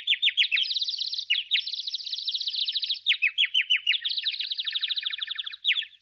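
Birds chirping: a dense, unbroken run of quick, high chirps that sweep downward in pitch, several birds overlapping.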